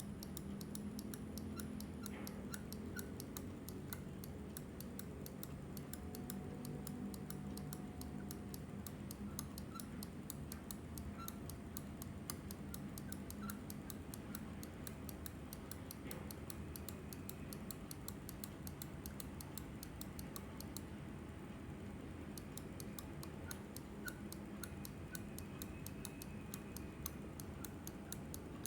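Glorious Model O gaming mouse squeaking in short, high chirps that come in small clusters as it is worked, over light ticks and clicks. The squeak is a fault that developed after two months of use.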